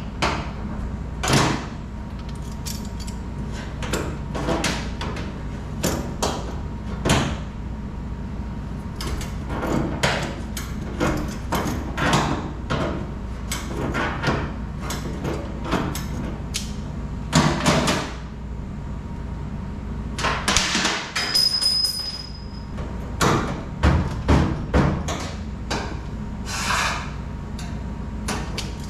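Irregular knocks and clanks of faucet parts and hand tools being handled at a commercial kitchen sink during a faucet replacement, over a steady low hum. About a fifth of the way past the middle, one clank leaves a brief high ring.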